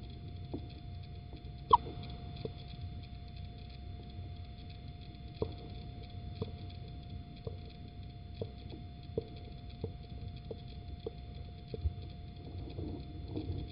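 Inside a little owl's nest box during egg laying: a steady electronic hum under a series of short, soft ticks about once a second, with one sharper click about two seconds in.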